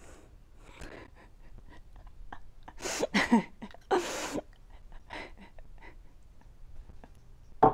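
A woman laughing in short, breathy bursts, the strongest about three and four seconds in, with a brief voiced sound near the end.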